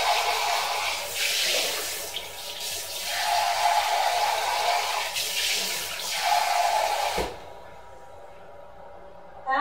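Kitchen sink faucet running warm water, then turned off with a short clunk about seven seconds in.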